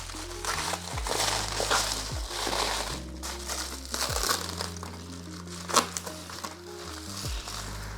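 Bubble wrap and plastic packaging crinkling as it is handled and pulled off a box, with one sharp snap a little before the end, over background music with a stepping bass line.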